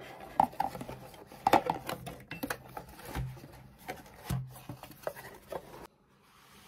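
Handling noise from objects being moved by hand: a string of light clicks, taps and rustles, with two soft thumps about three and four seconds in.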